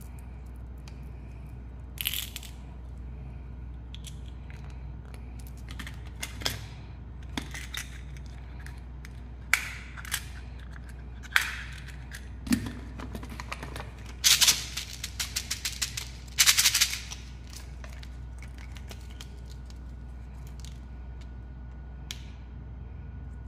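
Small hard candy-coated sweets clicking and rattling against each other and a small plastic toy bottle as they are handled and poured in. The clicks come scattered, with a quick dense run of them around the middle.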